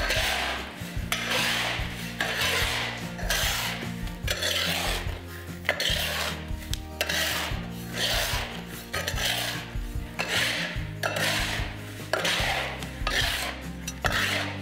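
Metal spatula sweeping and scraping coarse salt and Sichuan peppercorns around a large wok, a rasping stroke about once a second, as the salt is dry-roasted for curing fish.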